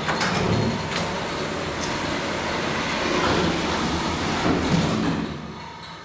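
MAN elevator car travelling down, a steady running rumble with a couple of clicks early on and sliding-door sounds. The noise eases off a little near the end.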